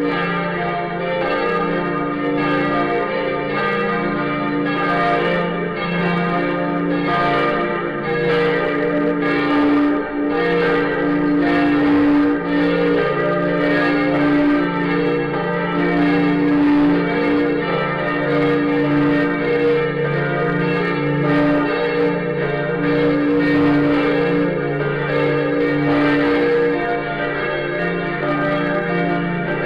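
Several large church bells of Berlin's Lindenkirche swinging and ringing together, their strokes overlapping in a continuous, uneven full peal. A new strike lands roughly every second.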